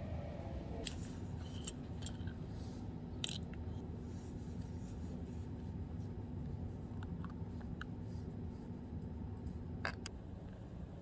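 Small plastic vitamin spray bottle being handled: a scatter of light clicks from the cap and bottle, with a sharper click about ten seconds in, over a steady low room hum.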